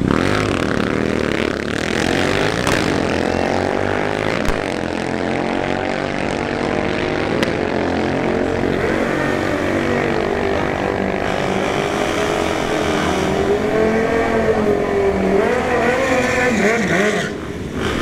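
Two motorcycles launching from the drag-strip start line and accelerating down the quarter mile at full throttle, their engine notes repeatedly climbing in pitch and dropping back at each upshift.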